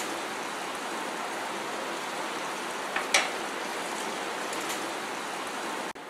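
Sugar-and-water syrup at a rolling boil in a nonstick frying pan, a steady bubbling hiss, with one sharp click about three seconds in.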